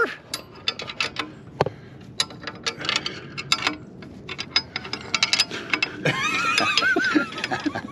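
Ratchet wrench clicking in quick strokes while turning the nuts on a motorcycle's exhaust mounting. Near the end a rooster crows once in the background, a drawn-out call.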